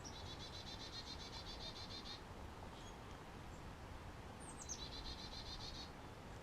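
A small songbird singing faintly: two rapid trills of quickly repeated high notes, the first about two seconds long and the second, about four and a half seconds in, opening with a few quick high slurred notes. A faint steady outdoor hiss lies underneath.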